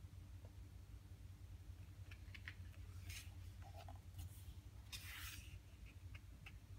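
Faint paper rustles and light ticks as a glossy page of a hardcover photo book is turned and pressed flat by hand, with a longer swish about five seconds in.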